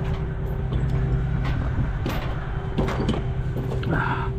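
A Peterbilt semi truck's diesel engine idling steadily, with an even hum and a constant tone over it. Scattered short knocks and clicks, such as steps and gear on the wooden trailer deck.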